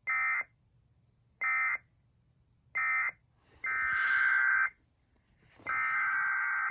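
Emergency Alert System SAME digital data bursts, a harsh buzzing warble. Three short bursts, the end-of-message code closing the previous warning, are followed by two longer, about one-second bursts of the header that opens the next alert.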